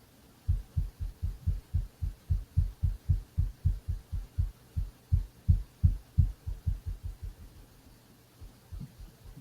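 A rapid run of dull, low bangs, about three to four a second, dying away after about seven seconds, with a few fainter bangs near the end. A low steady hum sits underneath.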